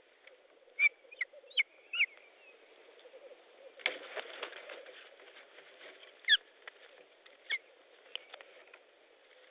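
Ospreys calling on the nest in short, sharp whistled chirps, some sliding down in pitch, scattered through the clip. About four seconds in comes a brief rush of wingbeats as an adult flaps on the nest.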